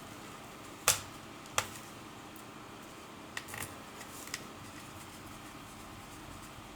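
Two sharp clicks about a second in and a second later, then a few lighter clicks and taps around the middle: laptop parts and tools being handled during reassembly.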